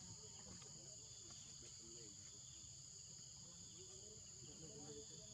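Faint forest ambience: a steady high-pitched drone of insects that runs on without a break.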